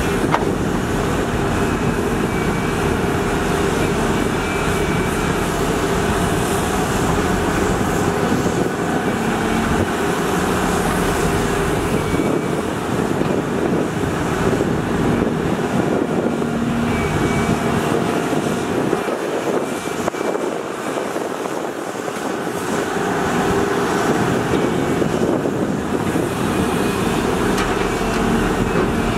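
Large crawler excavator's diesel engine and hydraulics working under load while digging and loading, a dense steady rumble whose pitch shifts as the machine works. The deep rumble eases for a few seconds about two-thirds of the way in.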